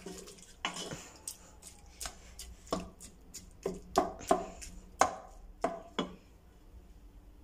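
Wooden spoon knocking and scraping against the sides of an aluminium pressure cooker while stirring minced meat: a string of uneven sharp taps, which stops about a second before the end.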